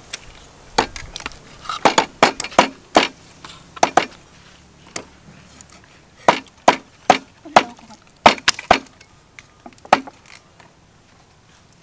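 Knives chopping raw meat: sharp, irregular chops, sometimes several in quick succession, pausing near the end.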